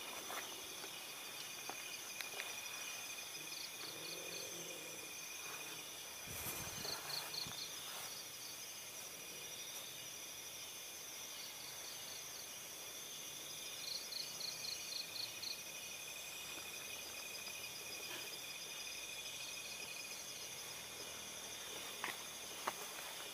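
Night chorus of crickets and other insects: several steady, high, shrill trills overlap, and now and then a short burst of rapid chirps breaks in, four times over.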